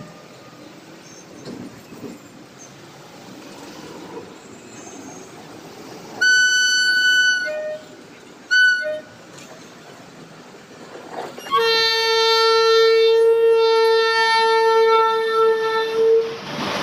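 WAP4 electric locomotive's air horn sounding as it approaches: a long blast about six seconds in, a short blast two seconds later, then a long, lower-pitched blast of about five seconds near the end. The rush of the locomotive's wheels on the rails rises just as the last blast stops.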